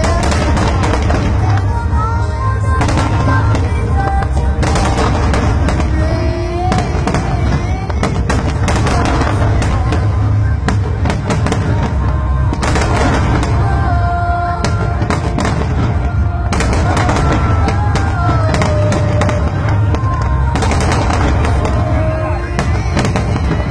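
Fireworks display: shells bursting one after another in a dense run of bangs and crackles over a continuous low rumble.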